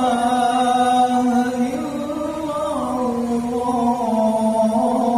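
A male muezzin chanting the adhan, the Islamic call to prayer, holding one long note with slow melismatic turns in pitch.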